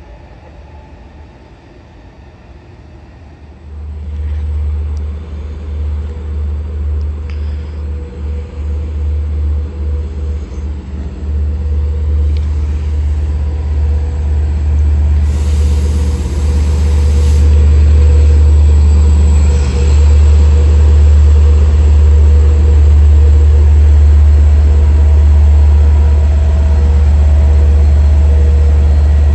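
Long Island Rail Road train at the station: a low rumble that starts about four seconds in, wavers as it builds, and becomes loud and steady for the second half.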